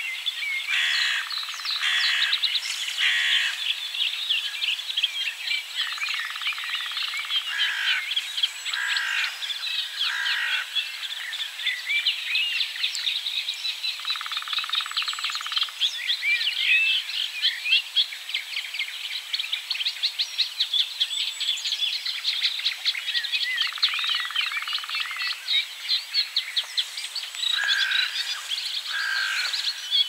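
Lesser spotted woodpecker drumming: repeated even drum rolls, each about a second or a second and a half long, over a dense chorus of other birdsong and calls.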